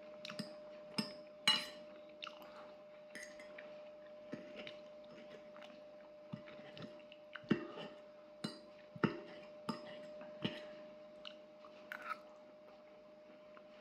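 Eating up close: chewing and mouth sounds, with irregular sharp clicks of a fork against a plate as food is cut and picked up, over a faint steady hum.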